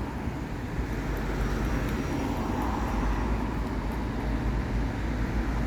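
Steady low engine rumble from a road vehicle, likely a bus running nearby, with traffic noise and no sharp sounds.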